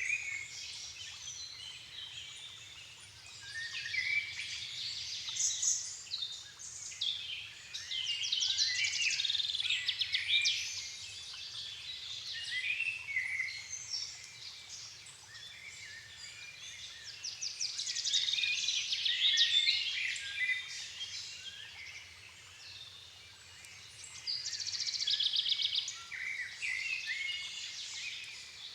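Dusk chorus of several songbirds in a forest, overlapping chirps, trills and whistled phrases that swell into louder bouts several times and then ease off.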